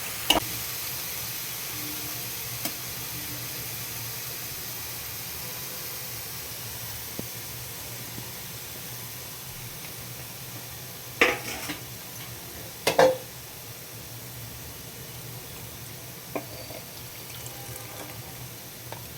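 A curry gravy cooking in a pan, making a steady sizzling hiss that slowly fades. A few sharp knocks of a spoon against the pan come near the start and at about 11 and 13 seconds in.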